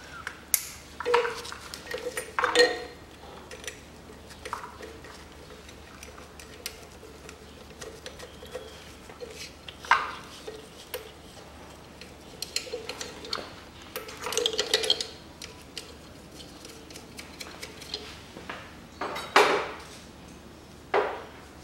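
Electrical connectors and a wiring harness being fitted by hand around an engine's alternator: scattered light clicks, clinks and rustles of plastic and metal. The sharpest knock comes about 19 seconds in.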